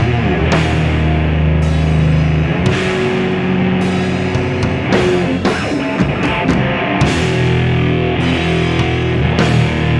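A rock band playing live without vocals: distorted electric guitars hold sustained low chords over a drum kit, with cymbal crashes coming again and again.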